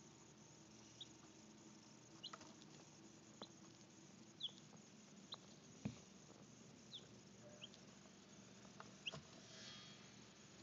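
Baby chicks peeping faintly: short, high, downward-sliding peeps about once a second, with light taps of beaks pecking at a plastic feeder and one louder knock about six seconds in.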